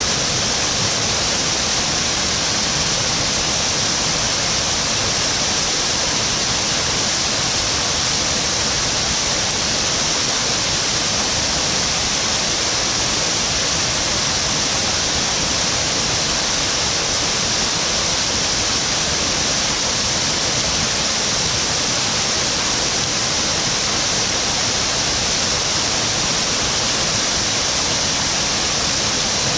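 Waterfall: falling water pouring steadily into its pool, a constant loud hiss with no change.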